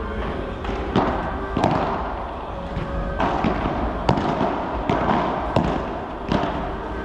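Padel ball being hit back and forth in a rally: about six sharp racket strikes, most under a second apart, with a longer gap in the middle.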